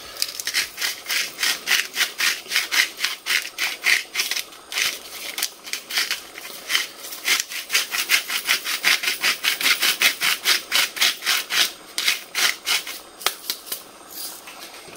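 Hand-twisted mill grinding Himalayan pink salt over a pan of soup: quick gritty grinding strokes, about three or four a second, with a short pause partway through.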